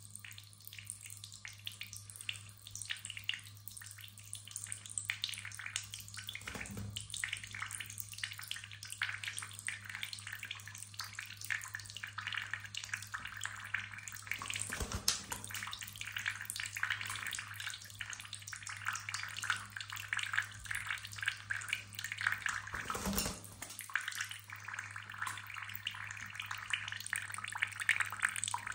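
Thin stream of tap water running steadily into a ceramic bathroom sink, with small splashes as a blue monk parakeet bathes under it.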